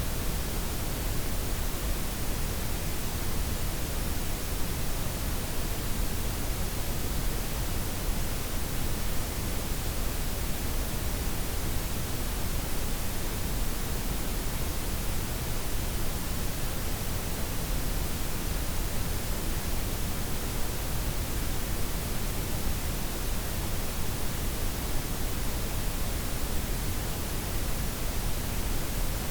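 Steady blend of white, pink and brown noise: an even, unchanging hiss with a deep low rumble.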